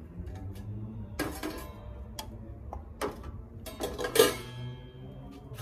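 Metal pots, pans and lids clanking as they are handled on a two-burner gas stove: a few separate knocks with a short metallic ring, the loudest about four seconds in.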